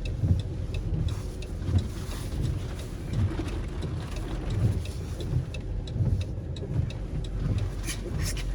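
Car running on the road, a steady low rumble of engine and road noise with uneven swells.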